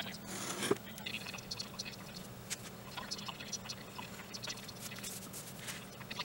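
A knife blade drawn through leather along a steel ruler, a scratchy cut in the first second, followed by scattered light scrapes and taps as the leather and a wooden-handled tool are handled on a cutting mat, over a faint steady low hum.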